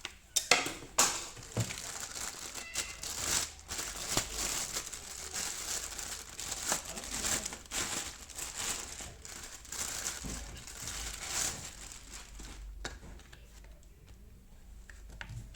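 Packaging being handled: crinkling, rustling and crumpling, with a few sharp clicks and knocks in the first couple of seconds. It dies down to a quieter rustle over the last few seconds.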